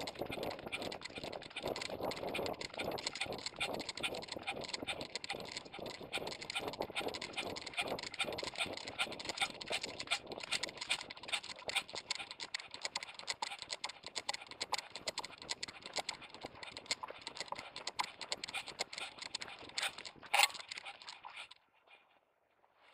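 Handling noise from an ION Air Pro action camera strapped to a moving dog's vest: a dense, fast clatter of clicks, rattles and rubbing as the camera jolts in its mount and brushes against the dog's fur. A sharp knock comes near the end, then the noise drops away almost to silence.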